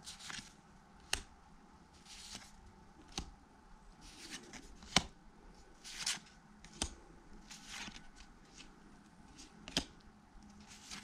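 1991 Pacific football cards being flipped through by hand, one at a time: each card slides off the stack with a soft swish, and five sharp card snaps come every two seconds or so.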